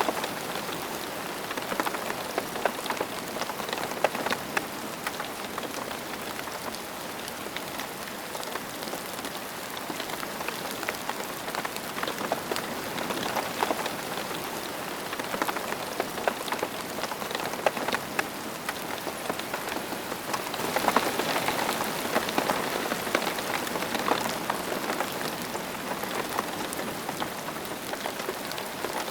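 Steady rain falling on a surface, with many individual drops heard as sharp little ticks over a constant hiss. The rain grows a little heavier about two-thirds of the way through.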